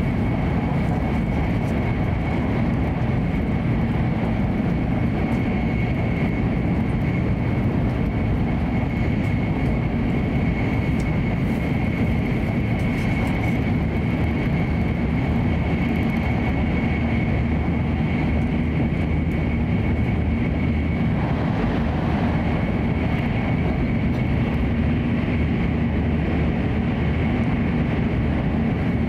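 Hokuriku Shinkansen train running at high speed, heard inside the passenger car: a steady roar of wheels on rail and rushing air, with a thin, steady high whine over it.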